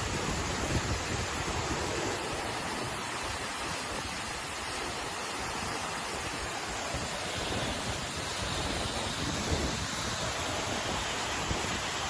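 Waterfall rushing steadily into its pool, with wind buffeting the microphone in uneven low gusts.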